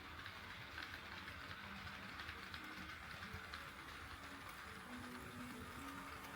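HO-scale model train running on sectional track, a faint steady rolling noise with scattered small clicks.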